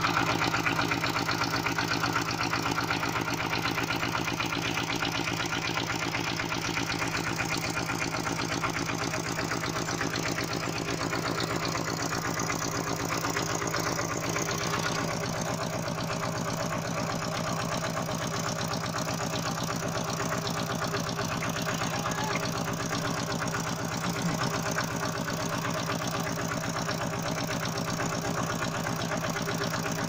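Single-cylinder diesel engine of a two-wheel walking tractor running steadily, with an even beat.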